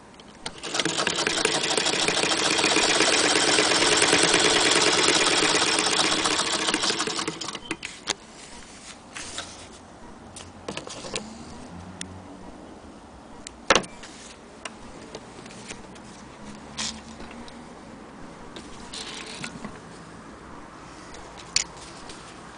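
Frister & Rossmann hand-crank sewing machine stitching for about seven seconds, a fast, even mechanical clatter that then stops. Scattered clicks and handling knocks follow, one sharp click about halfway through.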